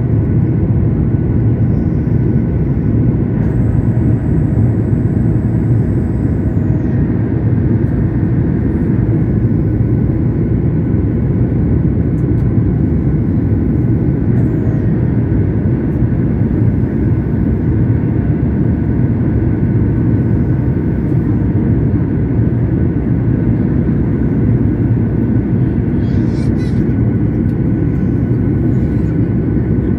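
Steady cabin noise inside a Boeing 737 in flight: a low, even rumble of the jet engines and the air rushing past the fuselage, with a few faint steady tones above it.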